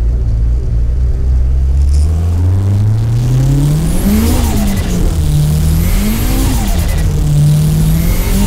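Nissan Silvia S15's turbocharged SR20 four-cylinder engine heard from inside the cabin as the car accelerates through the gears. The revs climb, fall at a gear change, climb and fall again at a second shift, then hold steady.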